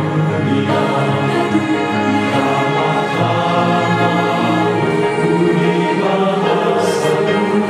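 Music: a choir singing in chorus over an orchestral accompaniment, sustained and full.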